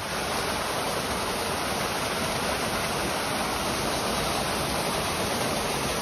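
Small waterfall on a stream, water falling and splashing steadily.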